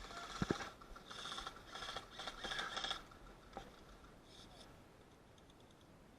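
Rapid mechanical ratcheting clicks from airsoft gear in four short bursts over about three seconds, with a couple of dull knocks near the start.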